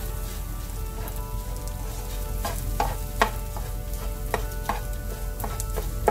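A wooden spoon stirring and scraping okra and scrambled egg in a nonstick frying pan over the heat, with a steady frying sizzle and irregular knocks of the spoon against the pan about every half second.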